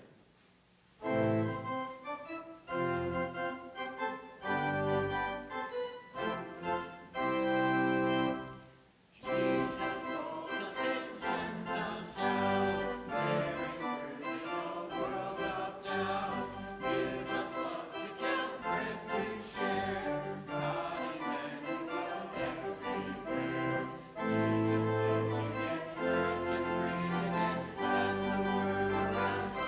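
Church organ playing, with held chords at first and then, after a brief break about nine seconds in, fuller and busier music.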